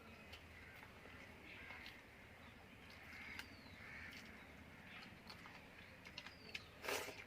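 Faint bird calls, short arching cries repeating every few seconds over a quiet outdoor background, with a brief loud rustling noise near the end.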